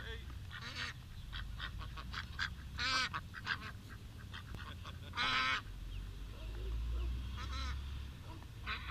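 Domestic ducks quacking, a few loud calls several seconds apart, over a steady run of short high peeps from ducklings.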